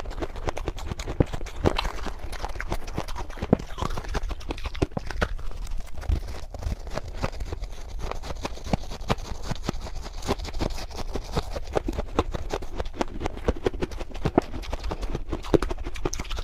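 Freezer frost crunching and squeaking as it is packed by hand and chewed: a dense, irregular run of crisp crackles.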